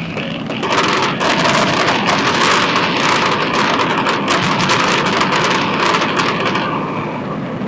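Fireworks crackling: a dense spray of tiny pops that starts about a second in and fades out near the end, over a low steady hum.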